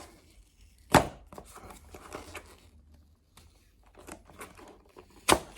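Cardboard product box being handled and opened: faint rustling and small clicks, with two sharp knocks, one about a second in and one near the end.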